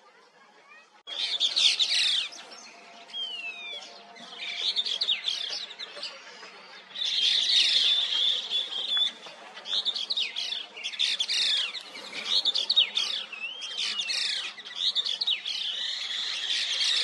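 Streaked laughingthrush calling: repeated bursts of loud, high squeaky notes with quick rising and falling whistled glides, starting about a second in.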